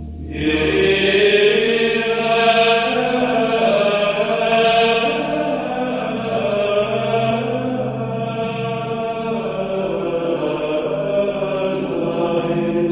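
Sacred choral chant used as soundtrack music: voices singing long, held notes in a slow melody, swelling in just after the start.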